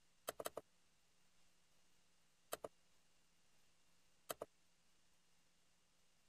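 Computer mouse clicks over near silence: a quick run of four clicks at the start, then a close pair of clicks about two and a half seconds in and another pair a little after four seconds.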